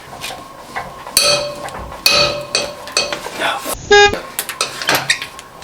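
A few short knocks, then a brief horn-like toot about four seconds in.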